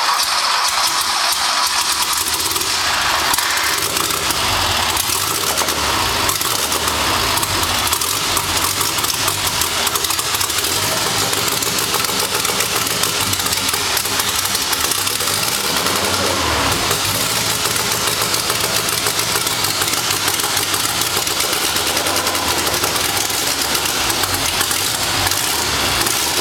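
Carbureted air-cooled Type IV flat-four from a Porsche 914 on an engine dyno, cranking and catching within the first few seconds on its first start, then running with the revs rising and falling.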